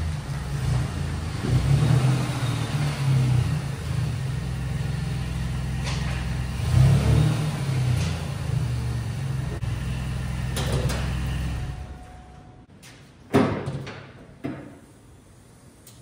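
A car engine running, its pitch and level swelling now and then as if revved, until it fades out about three-quarters of the way through. Two sharp knocks follow near the end.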